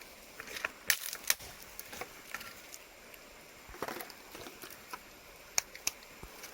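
A few sharp taps and clicks, with a short rustle about two-thirds of the way through, over a faint steady hiss.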